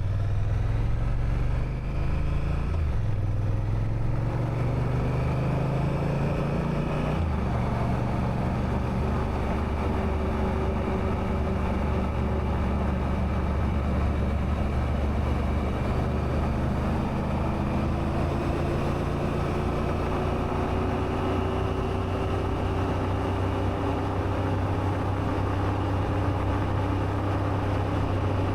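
Honda Africa Twin's parallel-twin engine pulling away and shifting up, its pitch rising and dropping twice in the first seven seconds. It then runs at a nearly steady speed under a constant rush of wind noise.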